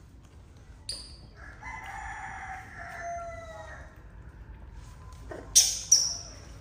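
A rooster crowing once in a long, slightly falling call. Near the end come two short, sharp high-pitched sounds about half a second apart, louder than the crow.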